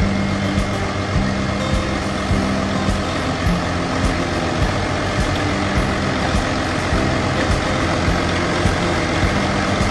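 Caterpillar C13 inline-six diesel engine idling steadily at about 900 rpm under test.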